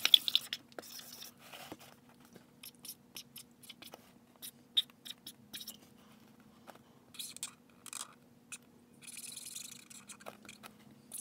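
Sharpie King Size felt-tip marker writing on a cardboard box in short scratchy strokes and taps. A quick burst of scribbling comes right at the start, and longer scratchy strokes come in the last few seconds.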